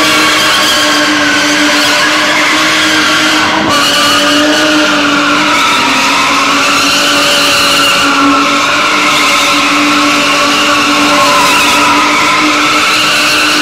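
BMW E30 325iS with an M20B27 straight-six held at steady high revs while it spins, rear tyres squealing continuously with a pitch that wavers up and down.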